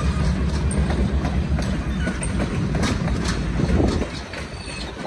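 Heavyweight passenger coaches on six-wheel trucks rolling past at low speed: a steady low rumble with irregular clicks of wheels over rail joints. The rumble drops off sharply about four seconds in.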